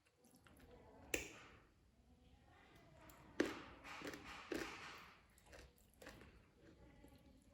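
Close-miked chewing and crunching of food, with a few sharp crunchy bites standing out about a second in, at about three and a half seconds, and at about four and a half seconds.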